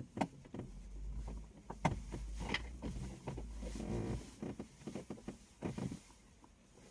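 Hands handling wiring and a plastic connector: scattered clicks, knocks and rustles as a power cable is pushed through and fitted, with a low rumble of handling noise in the first few seconds.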